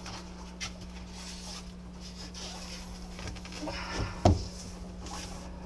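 Hands smoothing a vinyl backdrop against the back glass of a tank: faint rubbing and rustling with small clicks, and one sharp knock about four seconds in. A steady low hum runs underneath.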